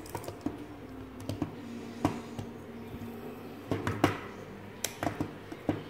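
Irregular small clicks and light knocks from two metal spinning reels, a Daiwa Exist and a Shimano Stella, being handled, turned over and set down, with the loudest click about four seconds in.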